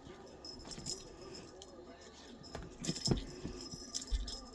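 Light jingling and clinking as cats play with a fishing-pole toy, busiest about three seconds in, with a soft low thump near the end.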